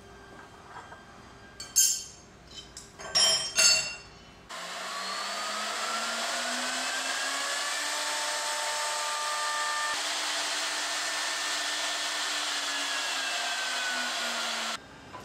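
A few sharp metal clinks as a cutter bit is fitted into the router spindle's collet, then the spindle motor starts with a whine that rises in pitch for a few seconds as it spins up. It runs steadily, dips slightly in pitch near the end and cuts off suddenly.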